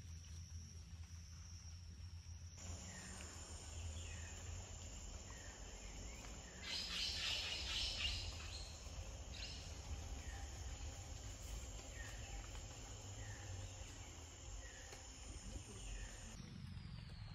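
Amazon forest ambience: a steady high insect drone with short falling chirps repeating about once a second, and a louder rasping call lasting about a second and a half, roughly seven seconds in. A low rumble runs underneath.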